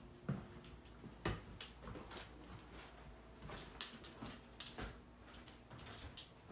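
Irregular light clicks and knocks from footsteps and the handling of a hand-held phone as it is carried through a small room, with a few sharper knocks among them.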